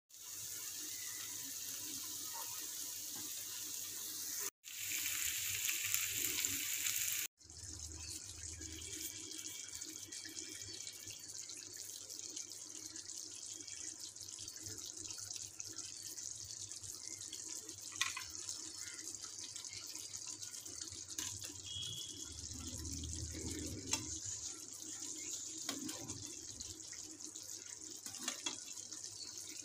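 Chicken pieces and gravy sizzling in a frying pan: a steady hiss, cut off briefly twice in the first eight seconds, with a few light taps.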